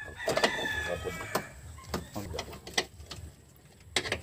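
A rooster crowing once, a drawn-out call of about a second and a half, with a few sharp clicks later on.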